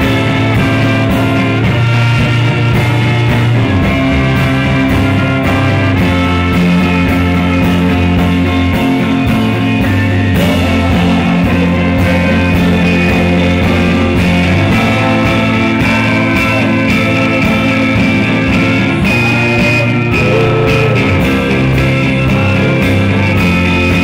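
Live rock band playing: a trumpet holds the lead line over electric guitar, bass guitar and a steady drum beat.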